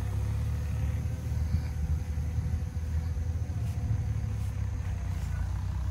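A low, steady rumble with a faint steady hum above it.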